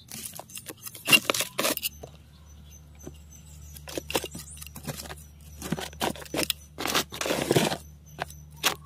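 Loose garden soil being scraped and pushed by hand with a flat scoop to fill a hole in a plastic grow bag, in short irregular scraping strokes that stop for a moment about two seconds in and start again about four seconds in.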